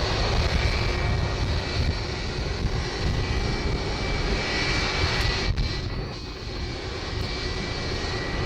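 Jet engines of an Airbus A330 taxiing: a steady rumble and rush with a high, steady whine, dipping briefly about five and a half seconds in.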